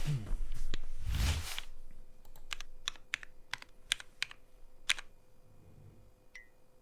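Key presses on a custom 60% mechanical keyboard with lubed and filmed Gateron Pro 2.0 Brown switches on a brass plate in a wooden case: about a dozen irregular keystrokes in the middle, after brief handling noise at the start, with two light ticks near the end.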